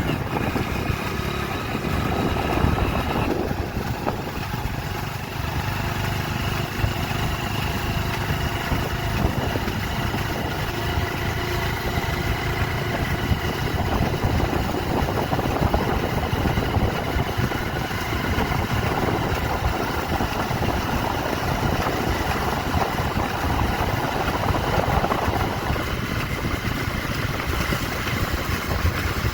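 A motor vehicle's engine running steadily under a dense, noisy rumble, with faint tones that shift in pitch now and then.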